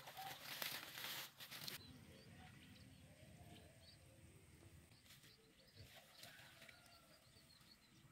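Water sloshing and water hyacinth leaves rustling as hands work in shallow swamp water, stopping about two seconds in. After that it is quiet, with faint bird chirps.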